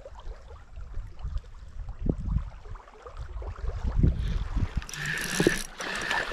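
Wind gusting on the microphone in low rumbles. From about five seconds in a louder whirring hiss starts as a spinning reel is cranked against a fish splashing at the surface.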